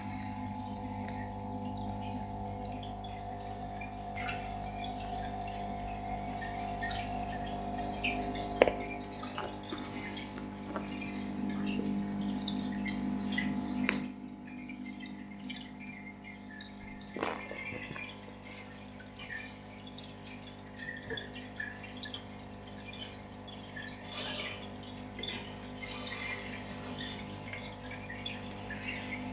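Aquarium filter running: a steady electric hum with water trickling and dripping from the outflow, and a few sharp clicks.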